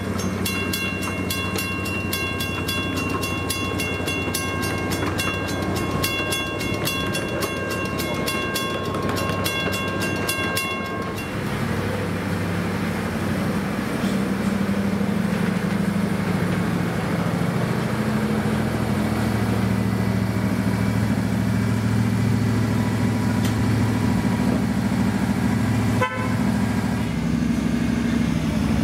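A bell rings rapidly, several strikes a second, for about the first eleven seconds. It stops, and a miniature railroad train's engine runs steadily with a low hum and rumble.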